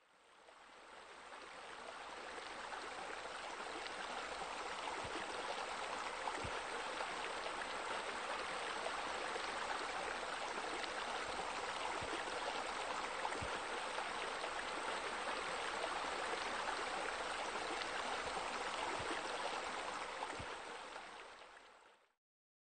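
Steady rush of running water from a pool's water features, with the spa spilling over into the pool. It fades in over the first couple of seconds and fades out near the end.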